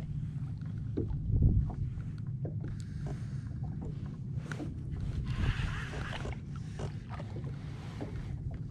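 Wind rumbling on the microphone and water lapping against the jet ski's hull, with light irregular clicks from a fishing reel being wound in while a fish is on the line.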